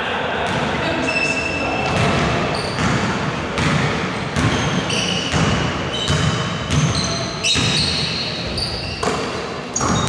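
Basketball being dribbled on a hardwood court, with sneakers squeaking as players run, echoing in a large sports hall.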